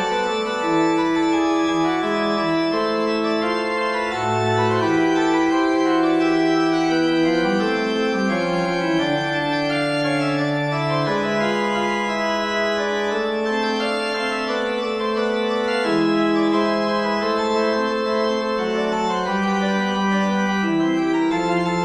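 Background music of slow, sustained organ-like keyboard chords, the held notes changing every second or few.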